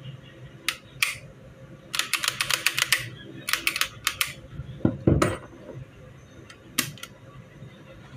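Sharp metal clicks and clacks of pistol parts handled on a wooden table: two single clicks, then a fast run of about ten clicks, a few shorter runs, and one heavier thump about five seconds in.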